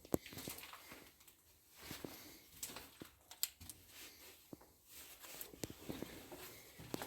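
Faint, irregular footsteps and scuffs of people walking slowly inside a small enclosed shelter, with scattered light clicks.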